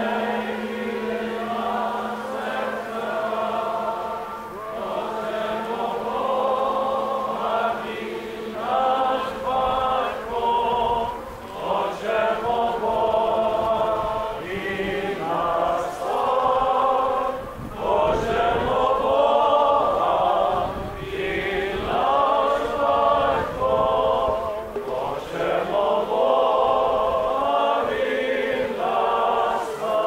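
A group of voices singing a liturgical chant in phrases of long, wavering held notes.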